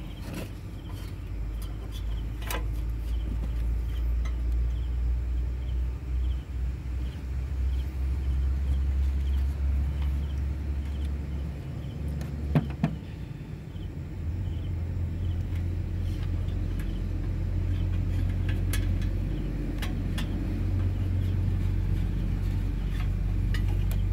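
A low rumble, changing in level every few seconds, with a few sharp clicks; the loudest click comes about halfway through.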